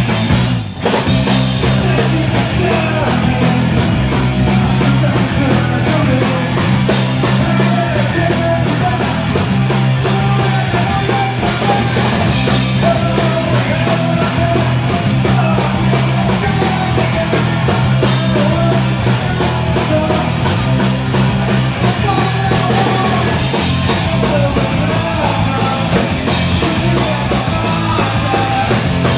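Punk rock band playing live at full volume, with a brief drop in the sound about a second in.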